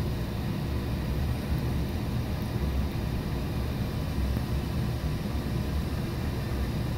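Coleman forced-hot-air furnace running: a steady low rumble and hum, heard up close. The furnace has been flashing a high-limit error (limit switch open) but is running at this point.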